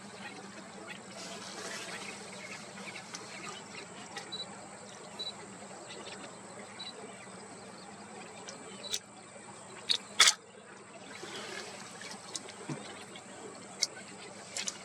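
Faint outdoor background with a steady high insect-like whine, a few short high chirps, and several sharp clicks about nine to ten seconds in, the loudest a little after ten seconds.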